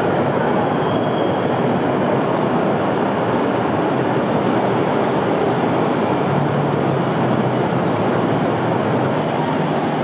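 Steady, loud rushing noise that stays even throughout, with a faint low hum in the second half.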